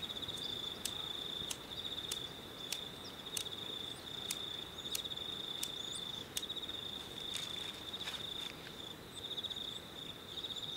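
Steady high insect trilling, with about a dozen sharp clicks, roughly one every two-thirds of a second over the first eight seconds, from a lighter being flicked again and again to light a double happy firecracker that does not go off.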